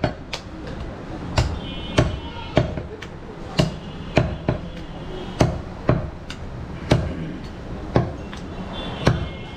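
A large butcher's knife chopping goat meat on a wooden stump chopping block. The blade strikes sharply and unevenly, about two times a second.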